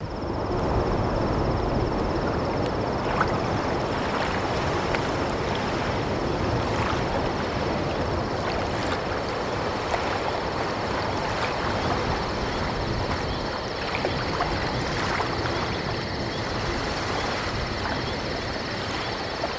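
Steady night ambience: an even wash of water-like noise, with a thin continuous high tone over it and a few faint ticks.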